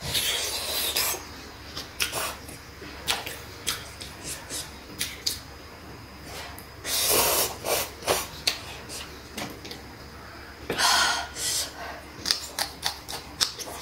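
A person slurping instant cup noodles and chewing close to the microphone. There are three long slurps, one at the start, one about seven seconds in and one about eleven seconds in, with many short clicks of chewing between them.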